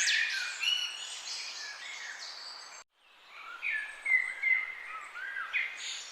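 Several songbirds singing and chirping over one another in a morning chorus. The sound cuts out completely for a moment about halfway through, then the song comes back.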